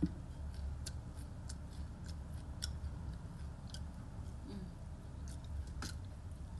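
Close-up chewing of crisp melinjo crackers and dry-fried tempe: irregular sharp crunches and crackles, over a steady low hum.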